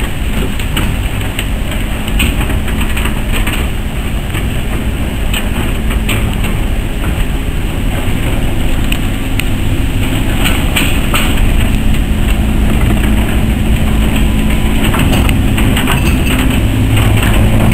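Goods wagons rolling slowly past on the track, their wheels clicking and clanking over rail joints and points. A diesel shunting locomotive's engine runs underneath and comes up louder near the end as it draws level.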